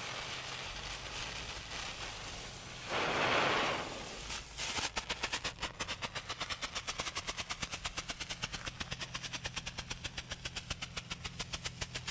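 Strobe firework: the lit fuse hisses, with a brief louder hiss about three seconds in. From about five seconds it gives a rapid, even series of sharp pops, several a second, as it strobes.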